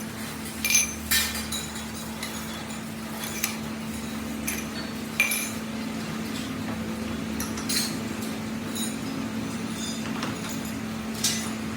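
Scattered light metallic clinks, about seven in all, over a steady low hum.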